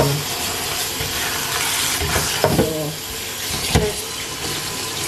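Cold tap water running onto cooked spaghetti in a plastic colander in a stainless-steel sink, with hands tossing the pasta to cool it so it stops cooking. Two sharp knocks come about halfway through.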